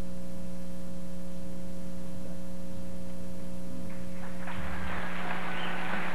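Steady electrical mains hum; about four and a half seconds in, audience applause breaks out and keeps going.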